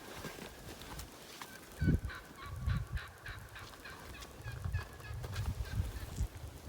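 A series of wild turkey yelps, short repeated notes about three a second, starting about two seconds in, from Merriam's turkeys. Low thumps of wind on the microphone sound beneath them.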